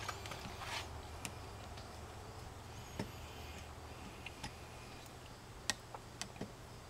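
Screwdriver turning a brass terminal screw on a 240 V NEMA 6-20 outlet held in the hand: a few faint, scattered clicks over a low steady hum.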